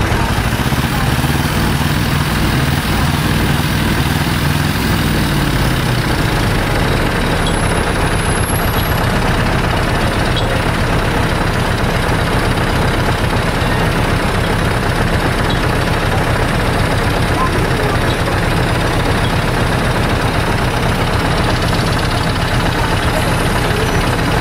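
Siemens C651 MRT train heard from inside a carriage while running. A stack of low whining tones from its GTO-inverter traction equipment falls in pitch and dies away over the first six seconds, leaving a steady running noise of wheels on track.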